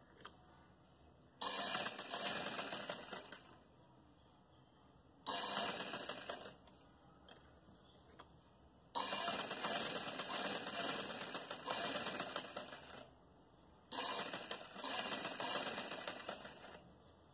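Domestic sewing machine stitching in four runs, each starting suddenly and slowing off, with short pauses between: hemming the single-folded edges of a fabric strip.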